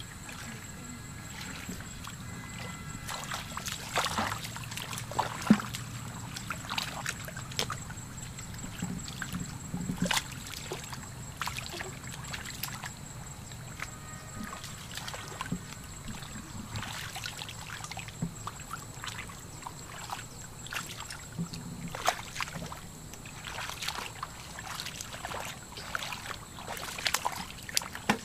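Hands splashing and sloshing in shallow muddy water while fish are groped for and grabbed by hand, with many short, irregular splashes.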